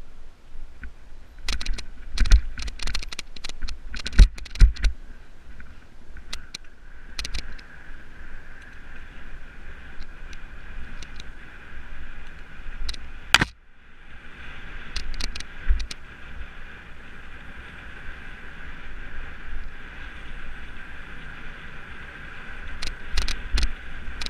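Mountain bike heard from onboard, clattering and rattling over a rock garden, with a burst of hard knocks a few seconds in. It then runs along smoother dirt singletrack with a steady buzz and occasional knocks, and one sharp bang about halfway through.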